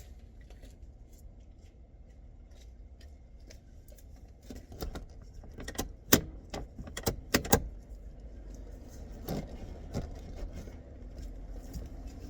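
Sharp clicks and clacks of a Mazda Miata NA's soft-top roof latch being worked by hand, a cluster of them about halfway through and one more near the end, over a low steady rumble. The roof is reluctant to lock.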